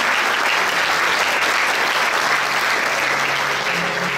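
Large crowd applauding steadily, the clapping easing off slightly near the end.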